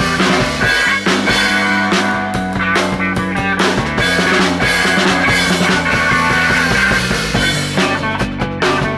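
Instrumental rock jam: a drum kit with cymbals played along with guitar and bass guitar holding sustained notes.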